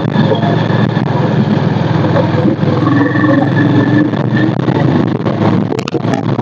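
Steady engine and road noise of a moving two-wheeler, heard from the rider's seat, with a few sharp clicks near the end.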